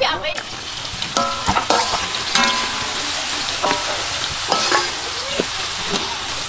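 Chopped green onions sizzling in hot oil in an aluminium wok, stirred with a wooden spatula. A steady hiss runs throughout, with a few short, sharper scrapes of the spatula against the pan every second or so.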